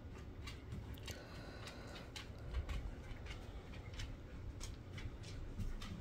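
Faint, irregular sharp clicks and crackles of a red squirrel cracking and chewing seeds at a tube bird feeder.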